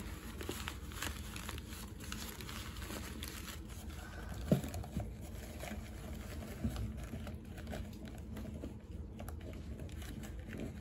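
Paper coffee filter crinkling and rustling as it is folded around a stack of cotton rounds and pushed into a plastic Brita pitcher filter basket, with small scattered handling clicks. One brief louder sound comes about halfway through.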